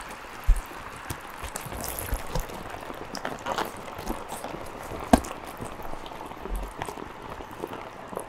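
Self-heating hot pot bubbling and hissing steadily as its heating pack boils the water under the plastic bowl, with small clicks from the plastic lid being handled and one sharper click about five seconds in.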